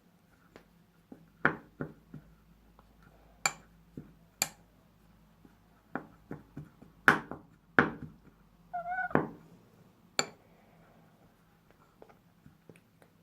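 A spoon clicking and knocking against a bowl as flour-and-shampoo slime is worked with the back of the spoon, in separate sharp knocks every second or so. About nine seconds in, a brief high-pitched cry.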